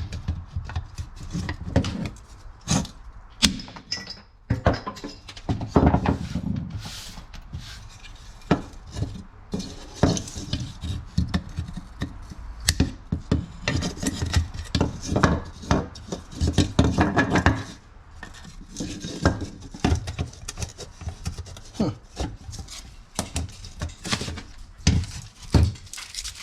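Irregular clicks, knocks and clatter of hands and tools working on a truck door panel, with plastic trim and a speaker being prised loose.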